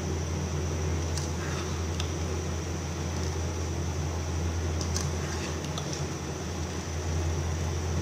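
Pot of rice at a rolling boil on a stove: a steady low hum and hiss, with a few faint clicks about a second in and again around five to six seconds.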